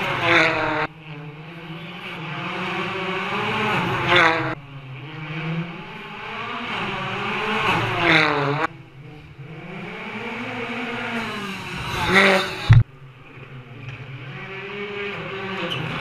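Rally car engines revving hard as cars accelerate past one after another. Each engine note climbs in pitch to a loud peak as the car goes by, then cuts off abruptly; this happens about four times, with another car building up near the end.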